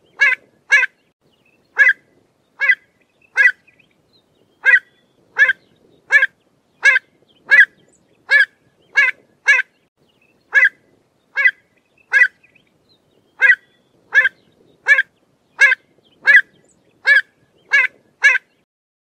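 Pied avocet calling: short, clipped notes repeated over and over, about one every three-quarters of a second with a few brief pauses, stopping shortly before the end.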